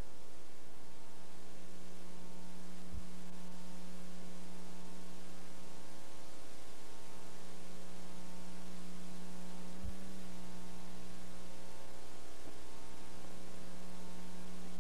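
Steady electrical hum with hiss from a blank stretch of videotape. There are two faint low thumps, about three seconds and ten seconds in.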